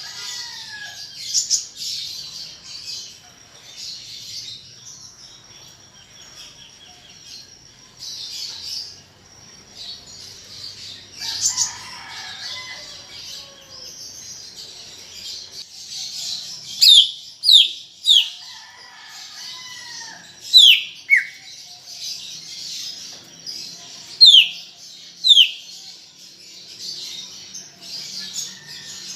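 Green leafbird (cucak ijo) singing in full voice over a steady background of high twittering, with a few lower slurred phrases. In the second half come a series of loud, sharp downward-sweeping whistles.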